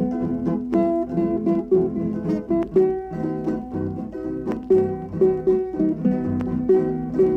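Instrumental passage of a hymn played on plucked string instruments: guitars picking a melody of quick notes over chords, with lower bass notes underneath.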